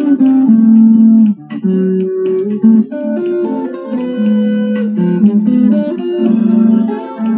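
Electric guitar playing an improvised solo on a bossa nova tune, picked phrases of notes and chords with short breaks between them.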